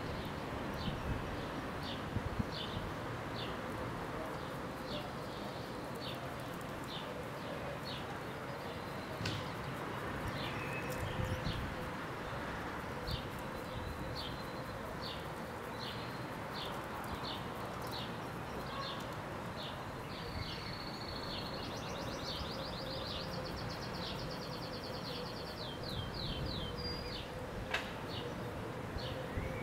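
A small bird chirping over and over, about a chirp every half second, with a longer fast trill about two-thirds of the way in, over a steady low background hum.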